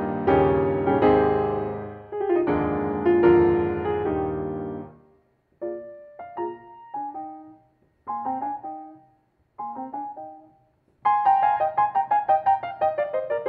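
Solo grand piano: loud, full chords for about five seconds, then a few soft, separated notes with pauses between them, then a quick run of notes falling in pitch near the end.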